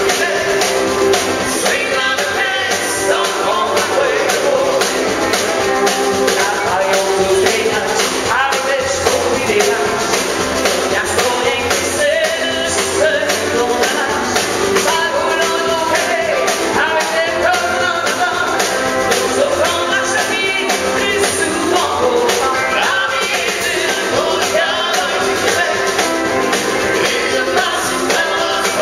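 Live country band playing, amplified: a woman sings lead into a microphone over acoustic guitar and drums with a steady beat.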